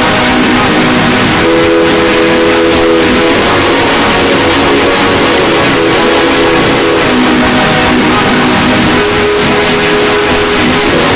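Deliberately distorted, extremely loud electronic sound effect: harsh blown-out noise with a few held tones underneath that shift to new pitches every couple of seconds.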